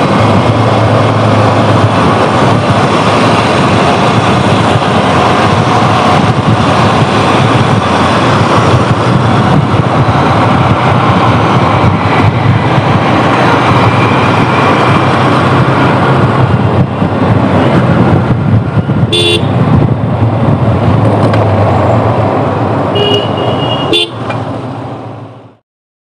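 Loud steady road noise while riding a motorcycle in city traffic: wind rushing over the microphone with the bike's engine and traffic underneath. A vehicle horn toots briefly about three-quarters of the way in and again twice near the end, then the sound cuts off suddenly.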